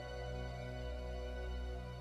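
Slow background music of held chords over a deep bass.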